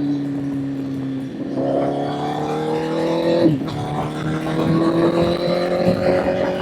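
Honda CBR1000 inline-four engine on the move: the note sags briefly, then the throttle opens and the revs climb steadily. About halfway through there is a quick upshift, after which it pulls on rising in the next gear.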